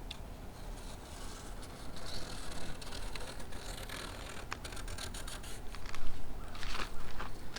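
A craft knife or razor blade cutting and scraping along the window glass edge as it trims excess vinyl decal and transfer tape, with rustling of the cut-off strip; irregular scratchy strokes, the loudest a little after the middle and near the end.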